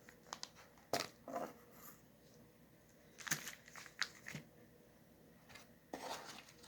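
Packaging being handled during an unboxing: a few scattered faint rustles and light clicks.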